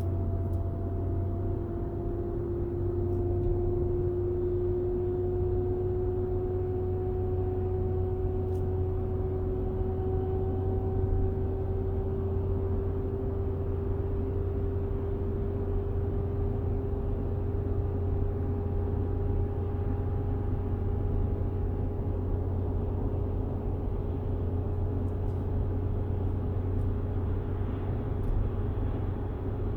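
2014 Infiniti QX60 at speed: a steady low road rumble with a humming tone on top that slowly rises in pitch as the vehicle gains speed. The hum is the drivetrain noise the owner is trying to diagnose. It comes in at about 45 mph, and the wheel hubs have already been checked.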